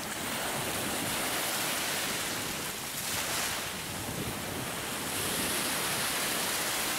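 Small shore waves breaking and washing up over sand, a steady rushing wash that swells about five seconds in as a wave breaks.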